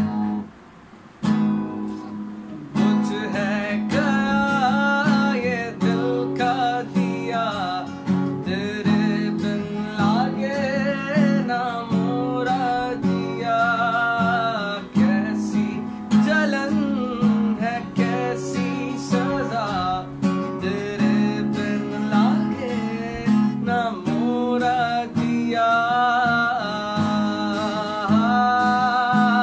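A man singing a slow song to his own strummed acoustic guitar. The guitar opens alone after a short pause, and the voice comes in a few seconds later.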